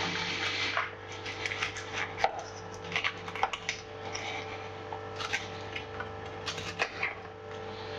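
A kitchen knife cutting up a raw chicken: irregular knocks and scraping as the blade works through the joints.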